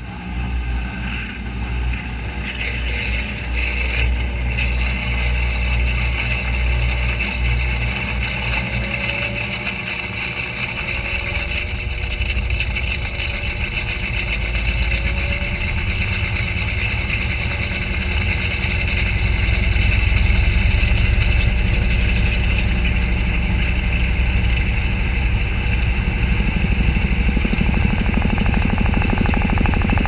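Whirlpool WTW4900BW top-load impeller washer in its high-speed spin and drain cycle, heard from inside the drum: a steady, loud mechanical rumble and whir of the spinning basket. A few faint short rising whines come midway, and it grows louder about two-thirds of the way through, then holds steady.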